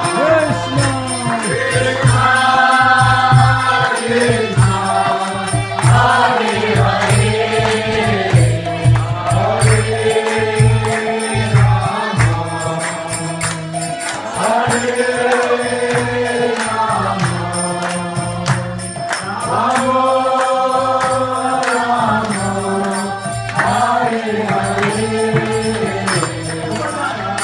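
Devotional kirtan chanting: voices sing a repeating mantra in long, held phrases that rise and fall, over a steady percussion beat.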